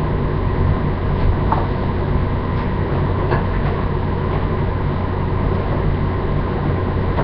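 Kitchen tap running steadily at the sink during dishwashing, over a low steady hum, with a few faint clinks of dishes.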